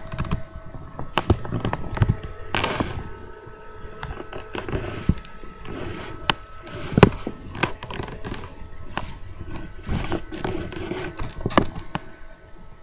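Handling noise close to the microphone: irregular knocks, taps and rustles, the loudest knock about seven seconds in, over a faint steady hum.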